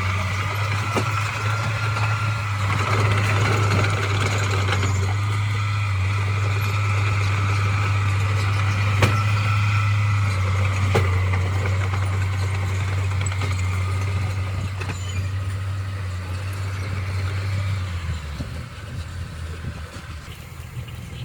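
Diesel engine of heavy construction machinery running steadily with a deep hum and a higher whine above it, with a couple of knocks midway; the deep engine sound drops away about eighteen seconds in.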